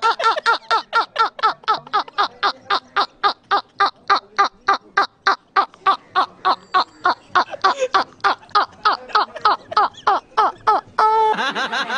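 A man laughing hard and helplessly in rapid, evenly spaced "ha-ha" bursts, about four a second, breaking off about eleven seconds in.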